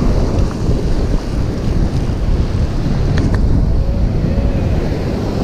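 Wind buffeting the microphone over breaking and washing surf, with a couple of faint clicks about three seconds in.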